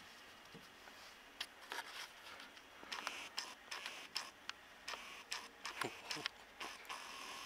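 Irregular light clicks and scrapes. They start about a second and a half in and come several times a second in places, with a few short, sharper scrapes near the end.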